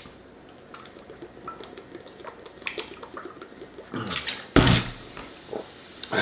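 Carbonated soda being gulped from a plastic two-liter bottle: quiet swallowing and sloshing. About four and a half seconds in comes a loud thump as the drinking stops.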